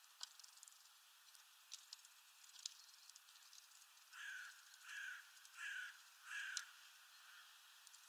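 Eurasian bullfinch giving four short whistled calls in a row, about two-thirds of a second apart, near the middle, with scattered light clicks around them.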